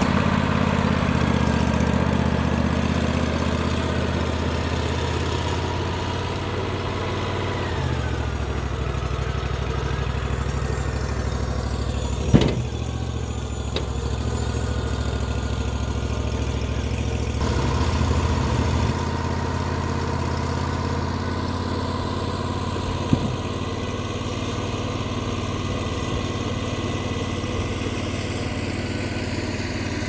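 Wood-Mizer LT40 portable band sawmill's engine running steadily, with a sharp clunk about twelve seconds in and another near twenty-three seconds.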